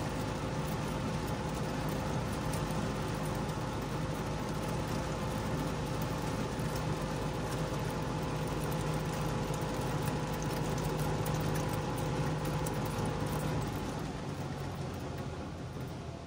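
Trabant 601's two-stroke, two-cylinder engine running steadily while the car is under way, heard from inside the car. About 14 seconds in, the engine note drops away and the sound gets quieter.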